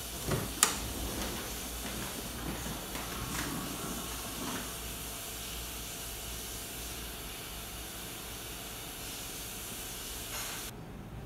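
Two sharp clicks as the early-2008 iMac is switched on, then a steady hiss while it boots from a white screen to the Apple logo.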